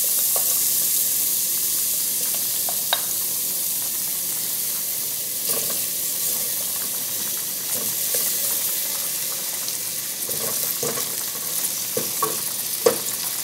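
Chopped onion and garlic sizzling in hot olive oil in an aluminium pot, being sautéed; the sizzle eases slowly. A wooden spoon stirring them scrapes and knocks against the pan now and then.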